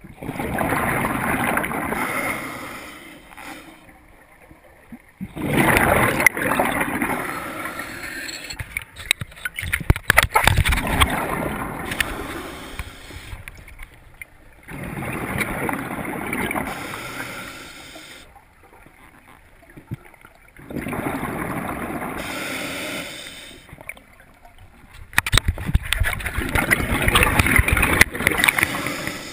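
A scuba diver breathing through a regulator underwater: the rush of each breath and the bubbling of exhaled air come in about six waves a few seconds apart, with quieter gaps between.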